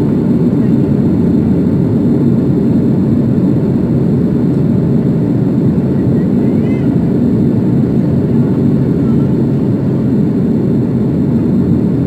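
Airliner cabin noise: a steady, loud rumble of jet engines and airflow heard from inside the passenger cabin.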